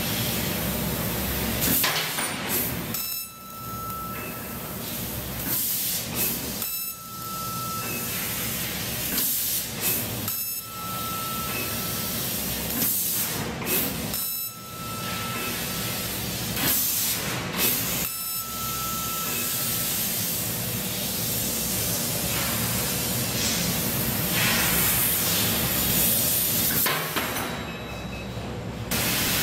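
600 W YAG laser cutting machine cutting 4 mm carbon steel: a steady hiss of the cutting head's gas jet. In the first twenty seconds the hiss breaks off briefly about every three to four seconds, and each break is followed by a short high tone. After that it runs on unbroken until a short dip near the end.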